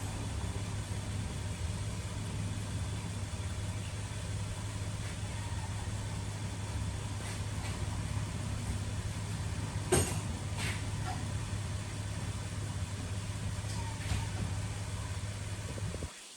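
2008 Dodge Caravan's 3.3L V6 idling steadily, an engine with an intermittent misfire on cylinder 3 (code P0303). A single sharp click comes about ten seconds in.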